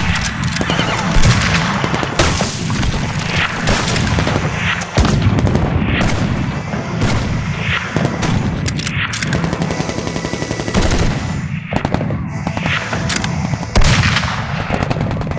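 Battle gunfire: a steady crackle of many shots, with louder single rifle shots standing out every second or two.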